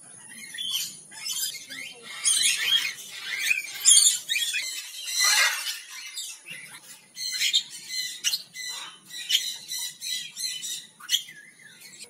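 Parrots squawking and chirping: a busy run of short, high, harsh calls that comes faster in the second half, over a faint steady high whine.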